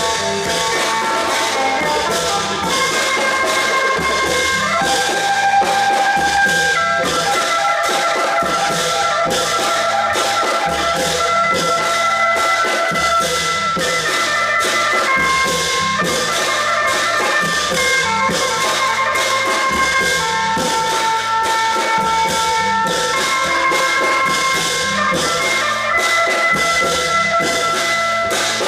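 Klong yao (Thai long drum) ensemble playing: fast, steady drumming with held melody notes sounding over it.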